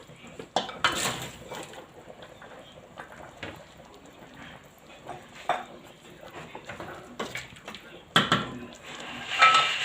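Scattered clinks and knocks of a cooking pot and utensils as green beans are put into the pot, with a louder, busier clatter near the end.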